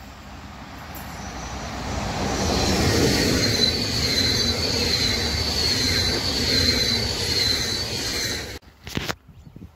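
Electric passenger train, a red SBB locomotive hauling double-deck coaches, passing close by: the rumble of wheels on rail grows louder over the first couple of seconds, with a steady high whine on top, then breaks off abruptly near the end.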